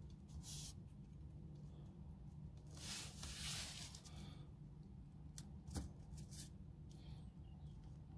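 Faint clicks and scrapes of steel tweezers working a small spring and parts of an airsoft 1911's lower frame, with a longer scraping rustle about three seconds in and a few sharp ticks near the end.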